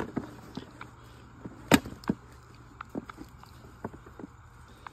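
Scattered knocks and clicks of a small squirrel nest box being taken apart by hand, with a sharp knock at the start and a louder one nearly two seconds in.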